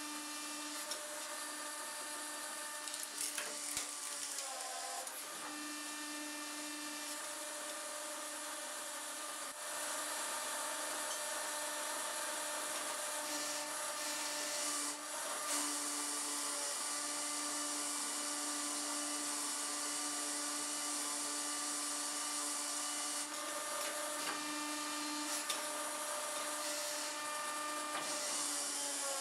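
Hydraulic power unit of a homemade 40-ton forging press, an electric motor driving a hydraulic pump, whining steadily as the ram is worked. Its pitch dips briefly about five seconds in and again near the end, and it gets louder about ten seconds in. A few short cracks and knocks come from the press crushing wood, a steel bar and a coil spring between its dies.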